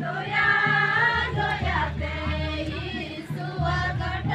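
A group of voices singing together, with music underneath and a steady low hum or bass beneath it.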